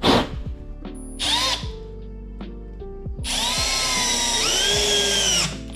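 Cordless drill driving a screw down through the subfloor: a short burst about a second in, then a run of about two seconds in which the motor pitch sags and recovers. Background music plays underneath.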